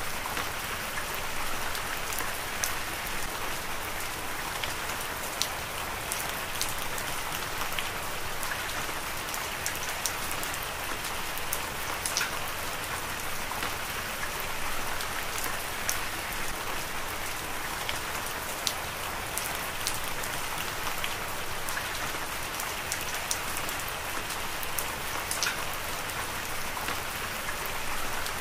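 Heavy rain falling steadily: an even hiss of rain with many sharp ticks of individual drops striking close by.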